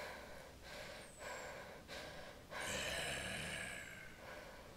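A woman breathing hard in short gasps, then one longer, drawn-out breath from about two and a half seconds in.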